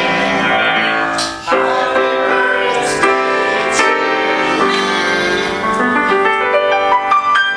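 Piano being played: a steady run of sustained chords and melody notes, with a brief break about a second and a half in.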